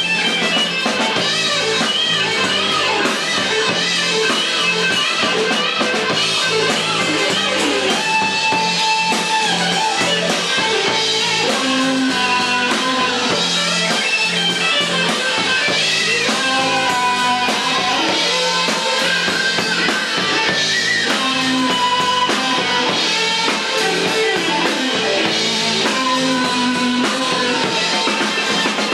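Live rock band playing, with electric guitar and drum kit to the fore.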